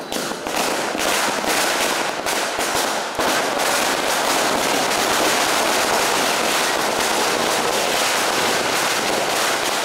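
A string of firecrackers going off in a dense, rapid crackle that keeps on without a break.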